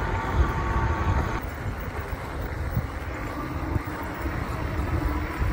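Ecotric fat-tire e-bike riding along an asphalt road at about 15 mph: steady rush of wind over the handlebar-mounted microphone and tyre noise on the pavement, with a faint steady hum over it.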